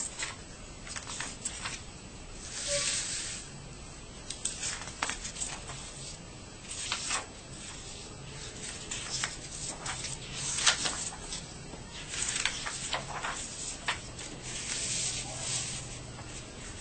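Loose sheets of drawing paper rustling and sliding against each other as they are handled, in short, irregular swishes.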